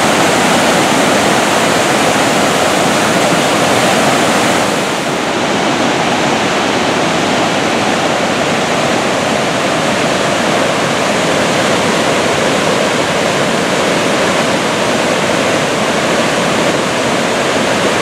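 Loud, steady rush of white water from a river waterfall pouring over a ledge. About five seconds in, the sound turns slightly duller and a little quieter.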